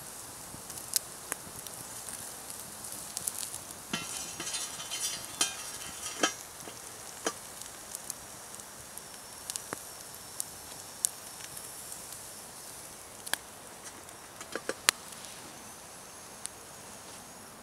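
Pork chops sizzling on a wire grill rack over campfire embers, with scattered sharp pops and crackles. About four seconds in, a couple of seconds of metallic scraping as a knife blade works a chop off the wire rack.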